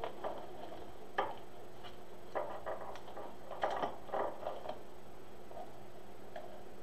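Irregular crinkles and clicks of stiff plastic deco mesh being scrunched and gathered by hand, most of them in the first five seconds, over a faint steady hum.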